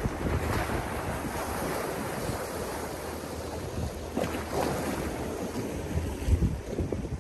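Sea waves washing onto the beach, one surge about half a second in and another about four and a half seconds in, with wind buffeting the microphone.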